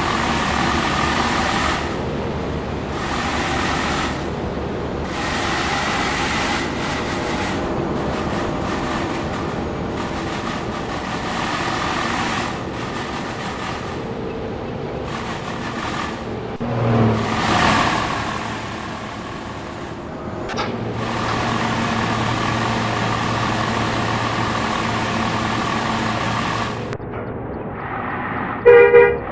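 Buses and traffic passing on a road, with long multi-tone horn blasts coming and going and one vehicle sweeping past about halfway through. Near the end a loud, fast-pulsing melodic telolet bus horn sounds.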